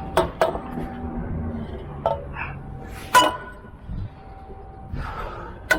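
Metal pipe pulled from the canal, knocked and clinked against metal about five times, the harder hits ringing briefly.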